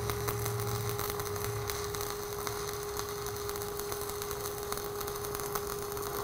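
Stick-welding arc from a 7018 electrode, crackling steadily as the rod burns during a vertical-up cap pass on steel plate, with a steady hum underneath.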